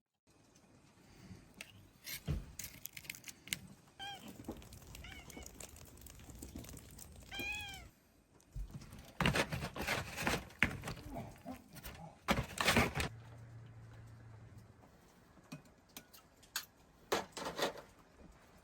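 A small animal, most like a cat, gives several short high-pitched cries that rise and fall, about four to eight seconds in. Loud knocks and clattering come in clusters later on, over a low background hum.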